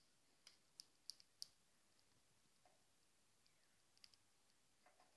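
Faint sharp clicks from young European goldfinches' beaks pecking broccoli from a hand: a quick run of about five in the first second and a half, then two more near four seconds in.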